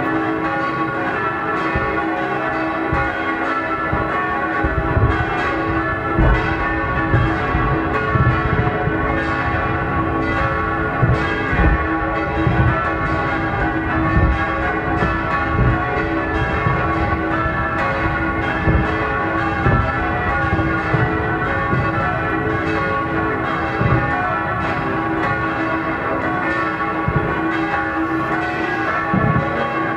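Church bells ringing steadily, many bell tones overlapping, while fireworks go off as sudden low bangs every second or so.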